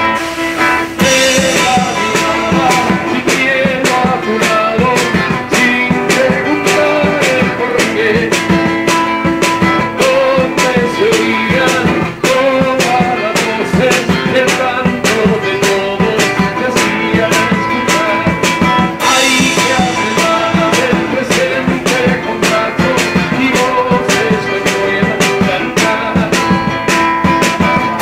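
Live band music: a strummed acoustic guitar with a drum kit keeping a steady beat, the drums coming in about a second in.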